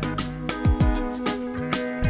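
Background music with a steady beat: plucked guitar-like notes over regular drum hits.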